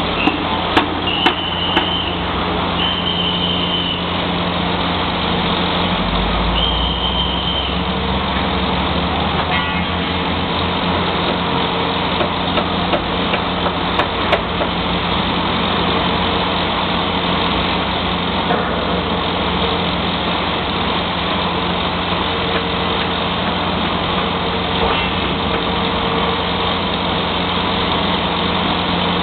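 Heavy diesel engine of a mobile crane running steadily under load while it hoists a steel column, with a few short high-pitched tones in the first eight seconds.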